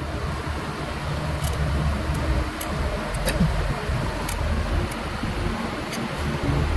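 A steady low hum with a rushing noise behind it, and faint sharp ticks scattered irregularly through it as a pointed metal tool scratches designs into a lacquered wooden piece.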